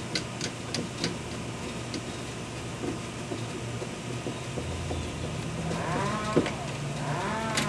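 Screwdriver tightening a deadbolt's mounting screws: light metallic clicks and ticks in the first few seconds. A low hum and a wavering, moaning tone come in during the last few seconds.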